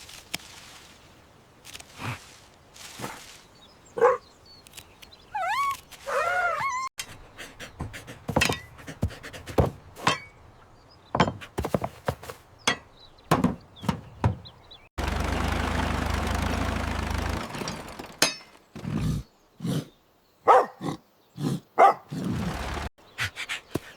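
Cartoon sound effects: a string of thuds and knocks, a gliding animal-like cry about a quarter of the way through, and a steady burst of noise with a low hum for a couple of seconds past the middle.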